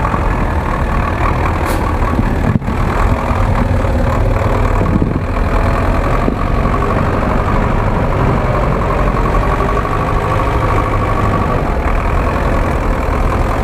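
The engine of a GAZ-66 cab-over army truck runs steadily at low revs as it crawls through snow, heard close up from beside the front wheel. There is a brief click about two and a half seconds in.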